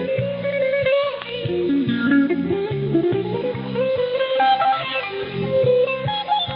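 Music with a melody over regularly pulsing chords, received off a shortwave radio broadcast, its sound narrow and cut off above about 4 kHz by the receiver's bandwidth.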